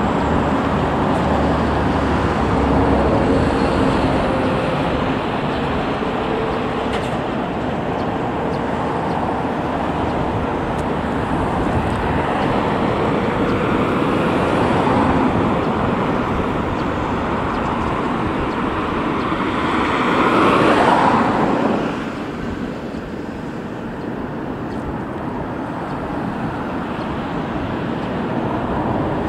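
Road traffic going by: a steady rush of tyres and engines, swelling as one vehicle passes close about twenty seconds in and then easing off.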